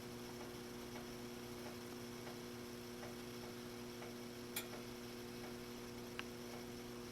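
Faint steady electrical mains hum, with light ticks at roughly one and a half a second and one sharper click about halfway through.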